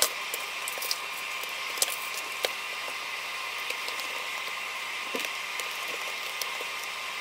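A few faint, scattered clicks and taps of a small screwdriver and fingers on a netbook's plastic bottom cover as it is screwed back on, over a steady background hum.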